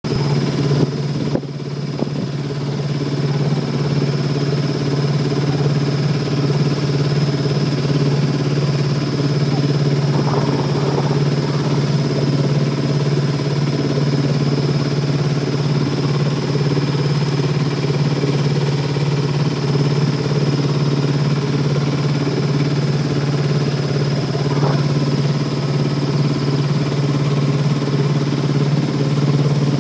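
A small wooden fishing boat's engine running steadily while underway: a continuous low drone with a thin, steady high whine above it.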